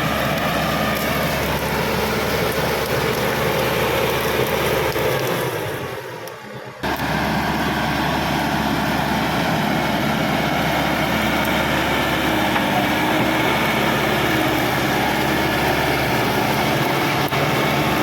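Caterpillar D5K XL crawler bulldozer's diesel engine running steadily under work. Its sound fades briefly about five seconds in and cuts back in suddenly about a second and a half later.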